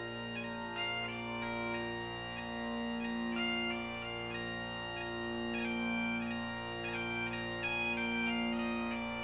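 Bagpipe music: a steady drone held unbroken beneath a moving chanter melody.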